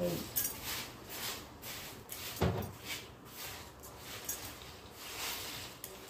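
A comb drawn repeatedly through long hair, a short swish with each stroke, a few strokes a second. One duller thump about two and a half seconds in.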